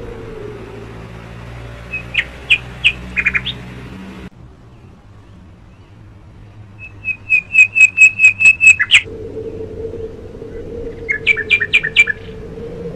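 A bird calling in three series of loud, sharp, quickly repeated chirps, several a second, over a steady low hum that drops out for a few seconds in the middle.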